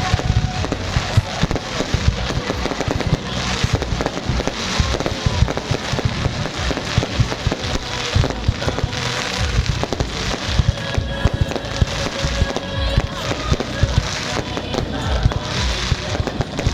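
Aerial fireworks display going off without pause: many bangs and crackles overlapping, one after another.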